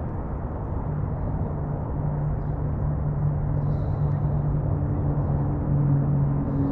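Riding an electric scooter: wind and road rumble on the helmet or handlebar camera's microphone, with a steady low hum that sets in about a second in and a higher hum that joins about halfway through.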